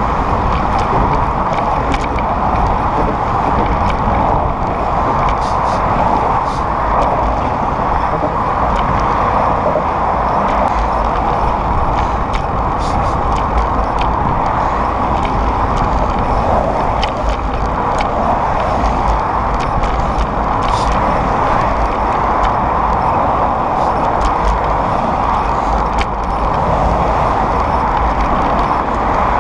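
Steady roar of car traffic on the adjacent bridge roadway, mixed with a low wind rumble on the bicycle-mounted microphone while riding.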